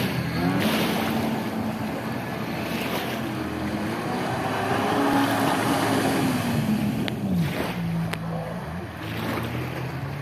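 Kawasaki Ultra 310LX jet ski's supercharged four-cylinder engine running hard through tight turns, its pitch rising and falling, with the hiss of spray and water. About seven and a half seconds in the engine pitch drops and settles lower and steadier.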